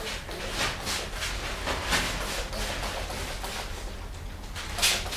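Hand-held trigger spray bottle squirting disinfectant onto a protective coverall and shoe covers in short hissing spurts at irregular intervals, several close together around two seconds in and a sharp one near the end.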